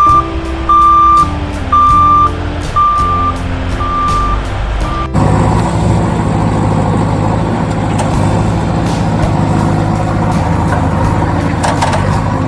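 Electronic truck reversing-alarm beeps, a steady high beep about once a second over a short simple tune. About five seconds in they cut off abruptly, giving way to a steady low engine rumble.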